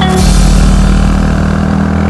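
Background rock music with drums, beginning with a cymbal-like crash, over the steady low drone of a motorcycle engine running on the road.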